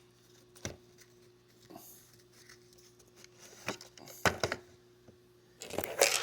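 Scattered plastic clicks and knocks from handling a robot vacuum cleaner as its battery is released by two tabs and pulled out. The loudest, longest clatter comes near the end.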